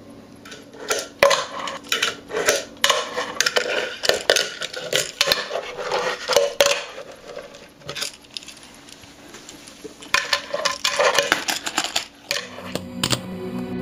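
Fingerboard clacking and rolling on a tabletop: a run of irregular sharp clicks and clacks as the deck and wheels hit the surface during tricks, a quieter spell past the middle, then more clacks. Music comes in near the end.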